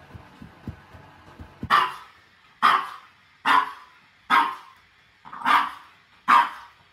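A few soft low thumps, then a Boston terrier barking six times, about one bark a second.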